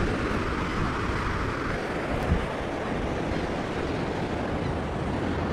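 Steady wash of small surf breaking and running up a sandy beach, mixed with wind on the microphone. A brief soft knock about two seconds in.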